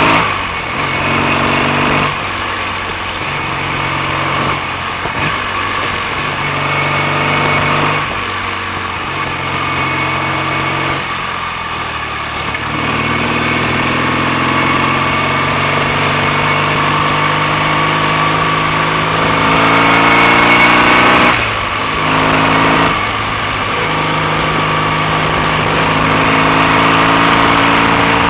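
BSA A65 650cc parallel-twin engine running under way on a test ride. Its note climbs and drops back several times as it is ridden through the gears.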